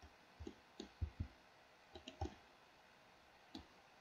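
Faint computer mouse and keyboard clicks: about eight short, scattered clicks at an irregular pace, as a 3D model is posed with shortcut keys and mouse clicks.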